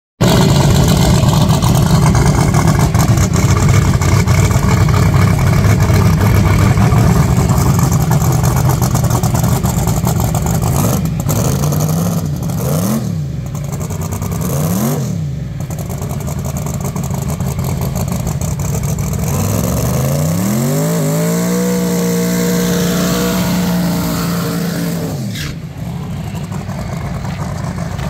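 Pro mod drag car's engine running loud and steady through its burnout, then two quick revs. About 20 seconds in it climbs to a steady high pitch held on the line, then it launches with a sudden change about 25 seconds in, and the sound falls away as the car heads down the track.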